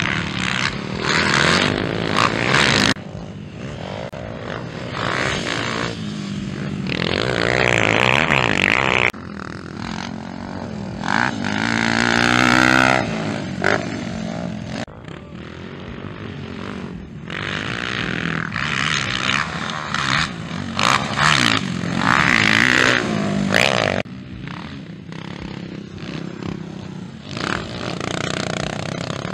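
Motocross dirt-bike engines revving hard and passing one after another, pitch climbing as the riders open the throttle and dropping as they back off, with sudden jumps in the sound where one clip gives way to the next.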